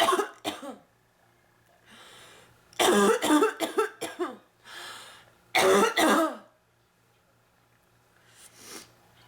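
A woman with bronchitis coughing in three fits, with breaths between them: one at the start, a longer one of several coughs about three seconds in, and one about six seconds in. A fainter cough or throat noise comes near the end. Her nose is blocked, so the coughs come out through the mouth.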